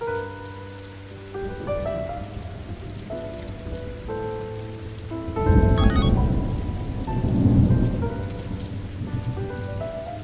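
Blues piano music over steady rain, with a loud rumble of thunder swelling from about five seconds in and fading by about eight seconds.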